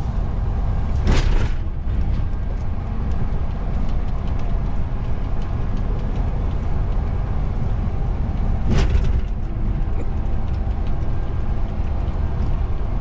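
Steady low rumble of a vehicle driving at expressway speed, with two short, loud whooshing hisses, about a second in and again near nine seconds.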